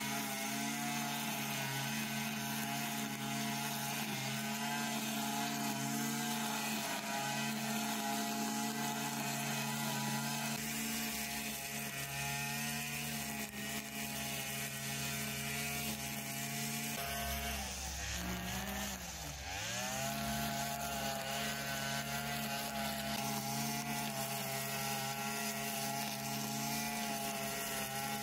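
Petrol brush cutter (power scythe) running steadily while cutting grass. About two-thirds of the way through, the engine speed briefly dips and then picks up again.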